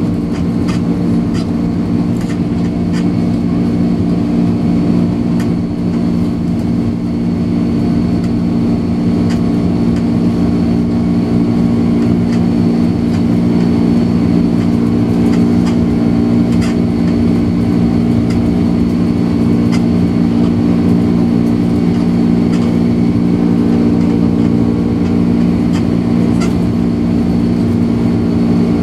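Twin turbofan engines of a Boeing 767-300ER heard from inside the cabin during the climb just after lift-off, a loud steady drone with a faint high whine above it and occasional faint clicks.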